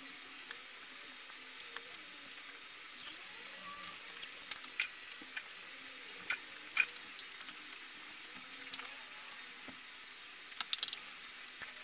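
Scattered light clicks and scrapes of tools and plastic as a glue-potted protection board is worked out of a lithium-ion power-tool battery pack, over a steady faint hiss. The sharpest clicks come a few seconds in and in a quick cluster near the end.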